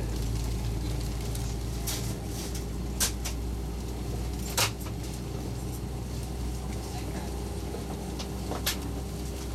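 Cabin noise inside a taxiing airliner: a steady low hum with a faint steady tone above it, broken by sharp clicks and knocks every second or two, the loudest about three seconds and four and a half seconds in.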